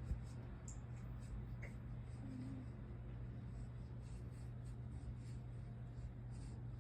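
Scottish Fold cat snoring faintly in its sleep, with soft scratchy breath noise over a steady low hum and a single small click at the very start.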